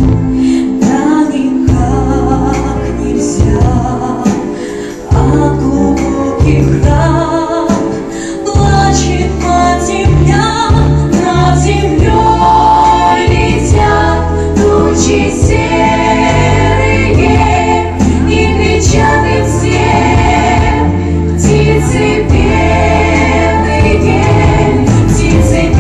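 A vocal ensemble of female voices singing together in a choir over an instrumental accompaniment with a steady bass line.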